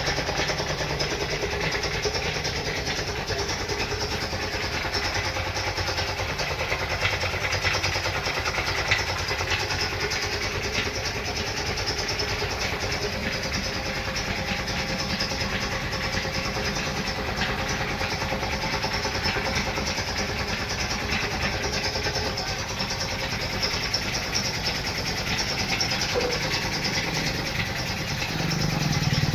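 A motor-driven machine running steadily with an even hiss, unchanged throughout.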